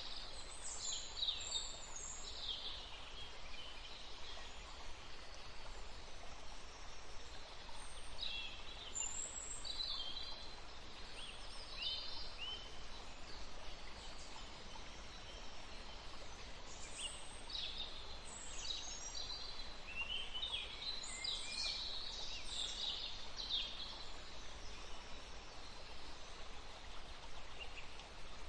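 Several small birds chirping and singing in scattered short phrases over a steady background hiss, busiest near the start, around the middle and in the last third.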